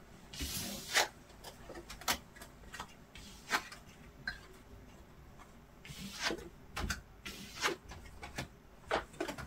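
Tarot cards being handled and shuffled by hand: irregular light clicks and rustles of the cards as they are cut, slid and taken from the deck.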